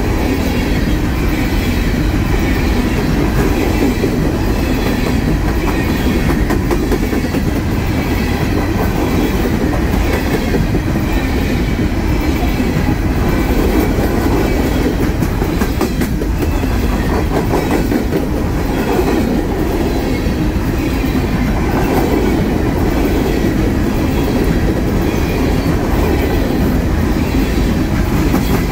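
Coal cars of a freight train rolling past close by: a steady rumble of steel wheels on rail with a clickety-clack of the wheelsets, the clicks sharper near the end.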